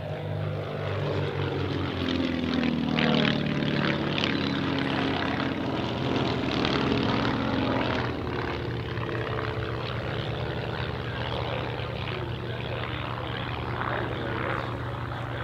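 Propeller engines of two Van's RV-8 aerobatic aircraft flying a formation display pass overhead. The engine note is loudest in the first half and bends in pitch as they go by, then settles into a steadier drone.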